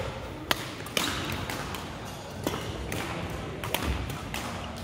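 Badminton rally: sharp clicks of rackets striking the shuttlecock, about four in all at uneven intervals, with low thuds of footsteps on the wooden court floor, echoing in a large hall.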